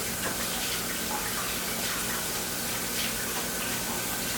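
Kitchen faucet running steadily into the sink as oily hands are rinsed under the stream.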